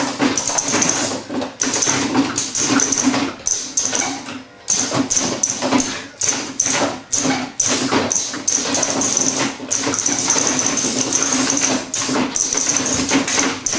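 Motorised moving car-seat rig running, a steady machine hum with rapid, irregular knocking and rattling as the seat shakes, easing off briefly a little past four seconds in.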